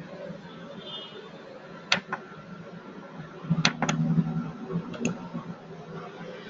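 A few sharp computer mouse clicks, some in quick pairs, over faint background noise.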